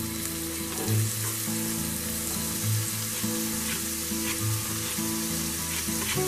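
Diced onion sizzling in hot olive oil in a stainless steel pan, a steady hiss, over background music.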